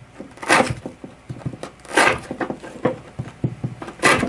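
440C stainless steel knife chopping through rope onto a beef rib bone backing: three sharp chops about a second and a half apart, with lighter knocks and clicks between them.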